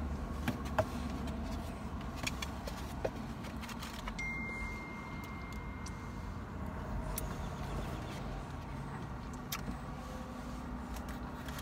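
Steady low hum of a car cabin, with scattered small clicks and rattles as a foam takeout box is handled. A faint, thin high tone sounds for a couple of seconds about four seconds in.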